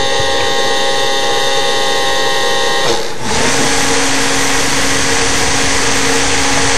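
Small electric propeller motors of a homemade blimp, whining steadily close to the microphone. About three seconds in the sound dips briefly and changes to a lower, noisier hum, as the motor speed changes.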